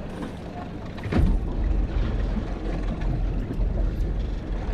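Low, steady rumble aboard a fishing boat at sea. It swells about a second in, starting with a short knock.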